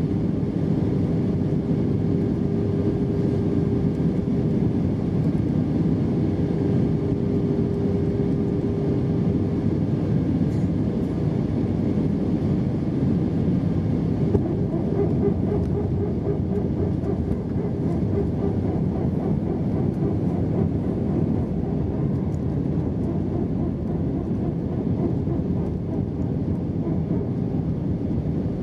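Steady cabin noise of an Airbus A320-232 with IAE V2500 engines in flight, heard from a window seat: continuous engine and airflow noise with a steady hum. The hum fades about ten seconds in and comes back, wavering, a few seconds later.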